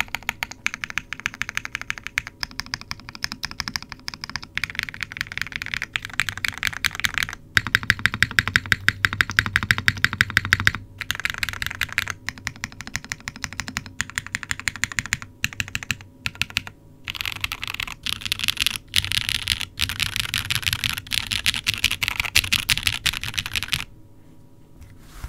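Fast typing on a WK Lilac CW60 mechanical keyboard (half polycarbonate plate, no foam, L&F Techno Violet switches lubed with 205g0, GMK Striker keycaps): a dense, steady stream of keystrokes with a couple of short pauses, stopping near the end.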